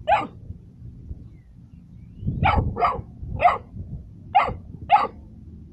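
A puppy barking in short, high yaps: one bark, a pause of about two seconds, then five more in quick succession. It is barking at the edge of a ditch it wants to jump across but can't.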